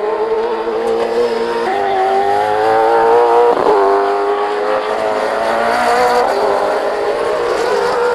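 V8 Supercar racing engines (5.0-litre V8s) running at racing revs, their pitch jumping and sliding up and down as gears change, with a short sharp crack about three and a half seconds in.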